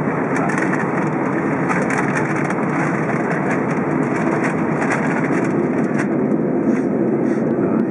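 Steady noise of an Airbus A320's jet engines and rushing air, heard inside the cabin, with a few faint crackling clicks.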